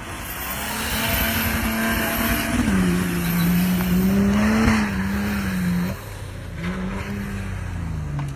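Off-road vehicle's engine running hard, its pitch rising and falling with the throttle, over a steady rush of tyre and dirt noise. It eases off about six seconds in.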